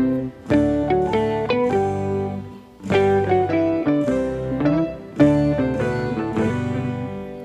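Background music: an instrumental tune carried by plucked guitar notes.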